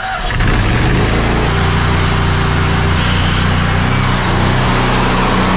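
Gas-engine pressure washer running and spraying. Just after the start its engine note deepens and gets louder as it comes under load, then it runs steadily under a hiss of water spray.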